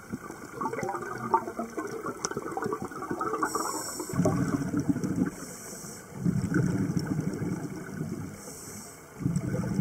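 Scuba diver breathing through a regulator underwater. A few seconds of crackling bubble noise give way to three breaths, each a short hiss of inhalation followed by a longer burst of exhaled bubbles.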